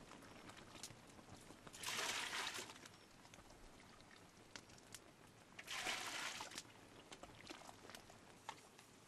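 Ladlefuls of whey poured out into a pot, two pours of just under a second each, about two seconds in and again near six seconds, with light clinks of the ladle between.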